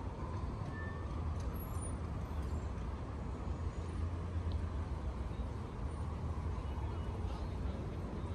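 Steady city road traffic: a continuous low rumble of passing cars and buses, with no single event standing out.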